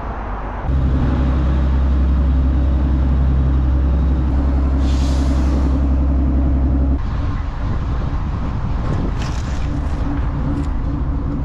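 A Dutch barge's engine running steadily underway, a low even drone, with a short hiss about five seconds in. The drone's tone changes abruptly about seven seconds in.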